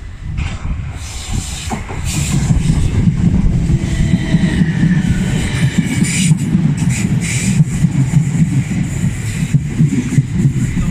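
A train running through the station. The rumble and rapid knocking of the wheels grows louder from about two seconds in, with a high whine and hiss above it.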